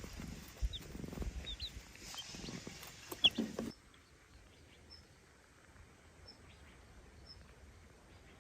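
A cat purring close up while baby chicks give short high peeps. The purring cuts off abruptly about three and a half seconds in, leaving only faint, scattered chick peeps.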